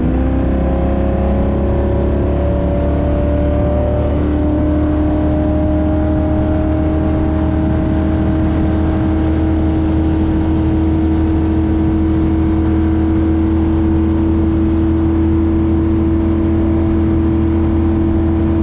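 Donzi 18 speedboat's NASCAR V8 engine running hard under way. Its pitch climbs over the first few seconds as the boat accelerates, then holds steady at speed.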